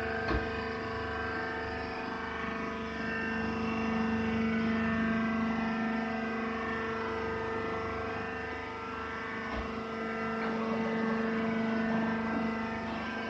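Hydraulic press baler running, its motor and hydraulic pump giving a steady hum, with a short knock just after the start.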